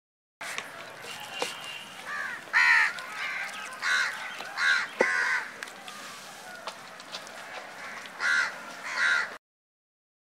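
Crows cawing: a run of harsh caws between about two and five seconds in, then two more near the end, before the sound cuts out.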